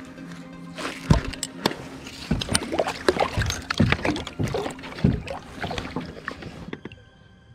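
Irregular knocks and clunks on a plastic sit-on-top kayak, with some splashing, as someone shifts about and reaches over the side; the knocks die away near the end.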